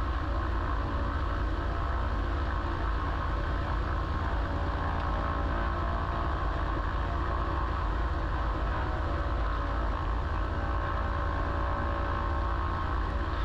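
Single-engine piston bushplane's engine running steadily on the ground before takeoff, a constant even drone with no change in power, heard from inside the cockpit.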